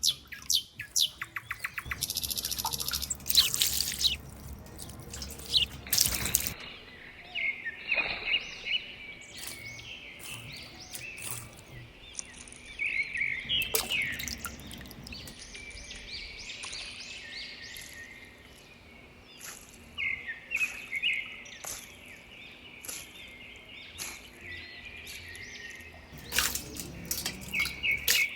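Small birds chirping repeatedly, with scattered sharp clicks and a burst of hissing noise in the first few seconds and again near the end.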